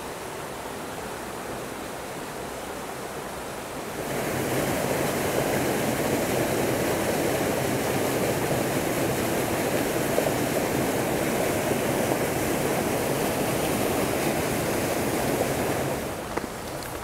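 Small waterfall in a mountain trout stream, water rushing and splashing steadily over the rocks. It gets clearly louder about four seconds in and drops back shortly before the end.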